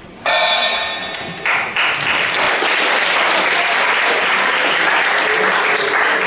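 A brief bright ringing tone that stops after about a second, then audience applause from about a second and a half in.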